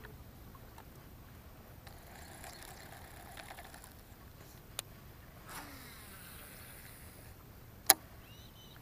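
Faint steady wind and water noise, with a single sharp click about eight seconds in as the baitcasting reel is handled.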